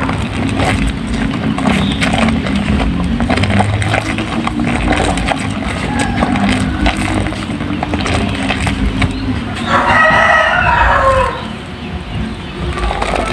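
A rooster crowing: one long call about ten seconds in, its pitch dropping at the end, over a steady run of small crackling clicks.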